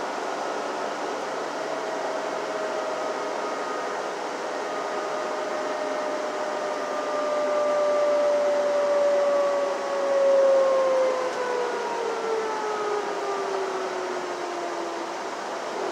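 Inside a moving transit bus: steady engine and road noise with a whine that holds, then glides down in pitch over several seconds in the second half, swelling briefly louder just before it falls.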